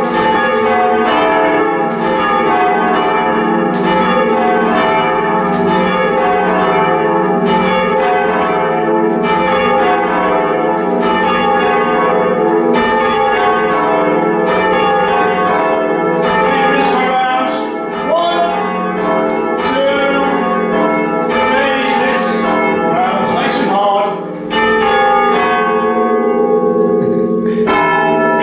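A heavy ring of four church bells ringing, each new stroke sounding over a dense, steady hum of notes still ringing on. In the second half, higher sliding tones come in over the bells.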